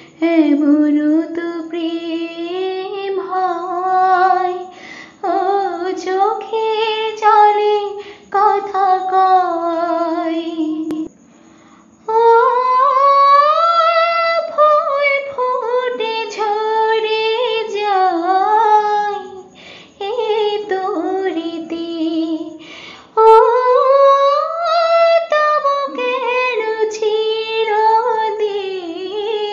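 A woman singing a Bengali song solo, without accompaniment, in long held phrases that glide in pitch. There is a short break of about a second some eleven seconds in.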